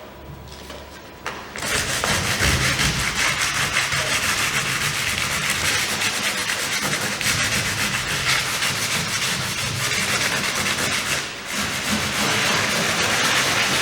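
Sandpaper rubbing back and forth over a cured fibreglass (GRP) surface, steady rasping sanding that starts about a second and a half in, eases briefly near the end, and keys the old surface so new resin will bond.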